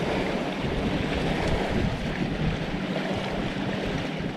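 Wind buffeting the microphone in an uneven low rumble, over the splash of choppy water lapping around the boat.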